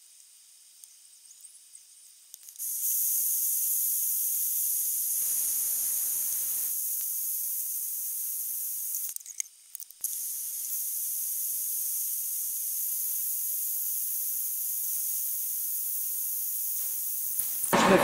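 Handheld butane blowtorch burning with a steady high hiss as it heats a copper tube for silver soldering. It is lit with a few clicks a couple of seconds in, and the flame drops out for about a second midway before catching again. Just before the end a louder, fuller rush of noise begins.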